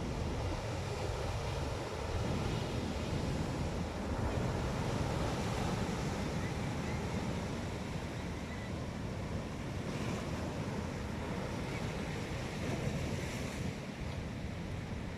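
Sea waves washing onto the shore, a steady surf sound, with wind buffeting the microphone.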